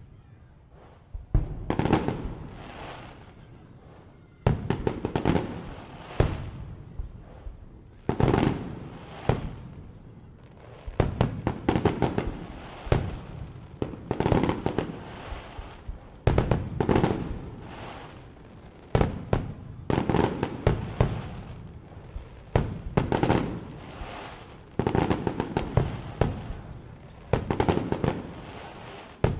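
Aerial fireworks shells bursting in quick succession: sharp bangs every second or two, often several close together, each trailing off in echo.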